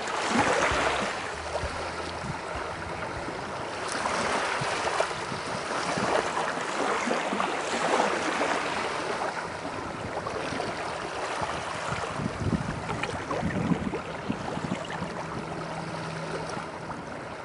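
Small waves lapping and breaking on a pebbly beach, the wash swelling and easing every few seconds.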